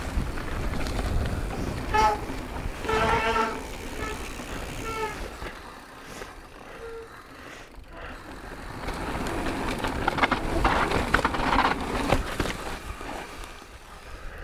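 Mountain bike ridden down a trail: tyres rolling and rattling over rough ground, with wind on the microphone. The noise rises and falls with the terrain, and a few short honking tones come in the first few seconds.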